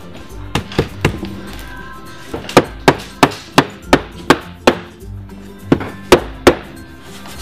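Rubber mallet knocking a freshly glued MDF cross brace down into its dados: a run of sharp knocks about three a second, a few lighter ones first, with a short break before the last three.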